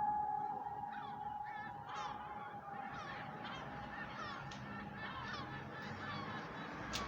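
The steady tone of a civil-defence siren fading out, while a flock of birds calls over it with many short, falling calls, several a second.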